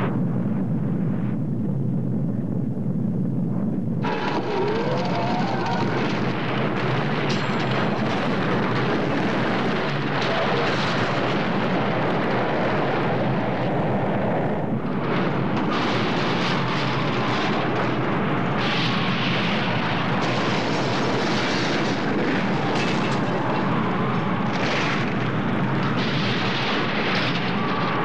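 Film sound effects of nuclear explosions: a continuous, loud rumbling rush of blast noise with no pauses, which turns brighter and fuller about four seconds in.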